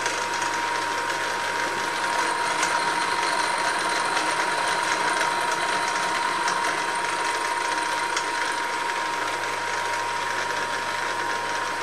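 Hare and Forbes HM48 milling machine running with its end mill spinning, a steady machine whine with one constant high tone.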